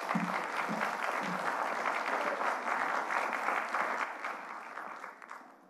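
Audience applauding, the clapping tapering off and dying away near the end.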